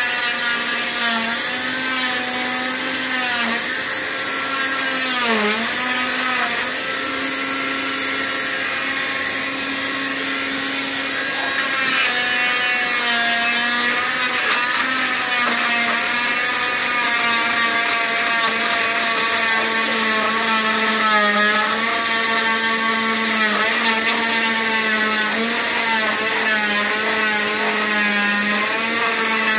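Oscillating cast saw cutting through a lower-leg cast, with its dust-extraction vacuum running. The saw's steady whine wavers and dips in pitch as the blade bites into the cast, most sharply about five seconds in.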